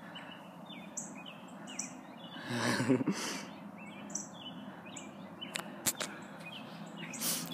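Small birds chirping in many short, quick chirps. A short low vocal sound comes about two and a half seconds in, and a few sharp handling clicks come near the end.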